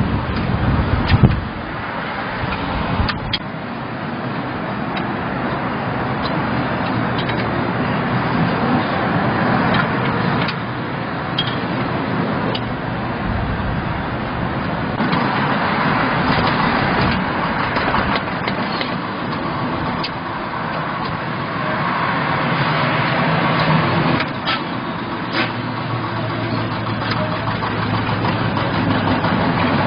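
Engine of a Kioti Mechron 2450 utility vehicle running steadily, with a few sharp knocks near the start and a steady low hum coming in toward the end.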